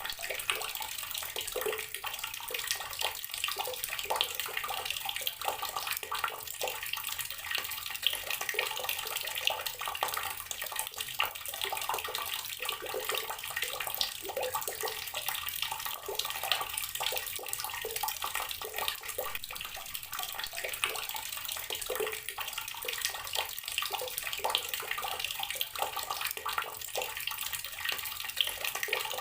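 Water running steadily from an outdoor tap and splashing below it, a continuous irregular patter.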